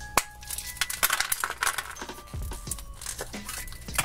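Hollow milk-chocolate egg cracked open by hand with one sharp snap just after the start, followed by clicks and rustling as the plastic toy capsule is pulled out. Background music plays under it.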